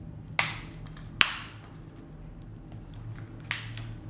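Sharp taps of metal detector parts being handled and set down: two loud ones within the first second and a half, a fainter one near the end, over a low steady hum.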